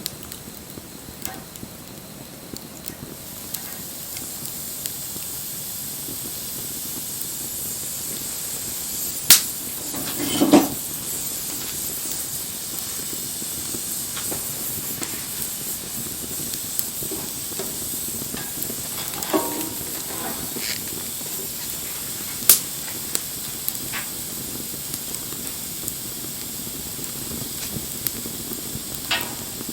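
Wood fire burning with a steady hiss, broken by several sharp crackling pops of the burning wood.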